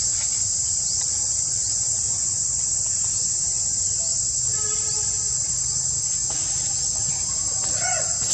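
Steady, high-pitched drone of insects shrilling, with a constant low hum beneath it. A few short, bending calls come in near the end.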